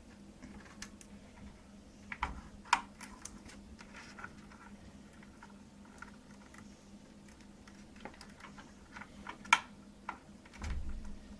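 Scattered light clicks and metallic taps of a PC case and graphics-card bracket being handled while the card's thumb screws are fitted, with sharper clicks about 3 s in and near 9.5 s and a dull thump near the end.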